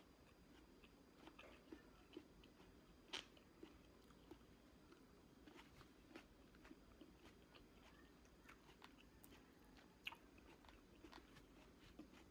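Faint chewing and biting of grapes: scattered small mouth clicks, with a sharper one about three seconds in and another about ten seconds in.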